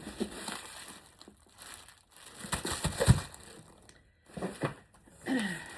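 Tinsel mesh and its packaging crinkling and rustling as it is handled, in irregular bursts that are loudest about three seconds in.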